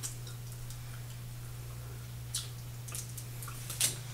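A mouth chewing a Cherry Ripe chocolate bar with a coconut filling: scattered soft wet mouth clicks and smacks, the loudest near the end, over a steady low hum.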